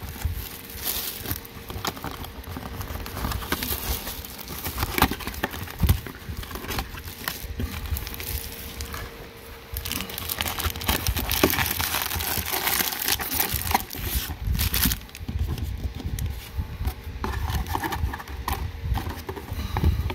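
Plastic shrink wrap crinkling in the hands, then a cardboard booster box and its foil-wrapped booster packs rustling and clicking as the packs are pulled out and handled.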